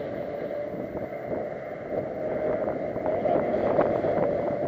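Steady drone of a running vehicle with wind noise on the microphone.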